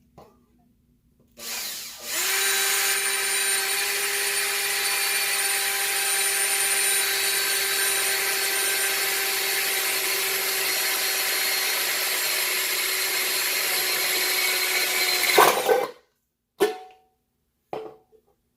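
Electric drill spinning up and running at a steady speed, boring a hole, for about fourteen seconds, then stopping. A couple of short knocks follow.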